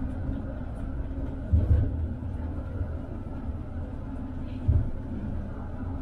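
Tram running along the track with a steady low rumble, and two heavier thumps about a second and a half in and near five seconds in.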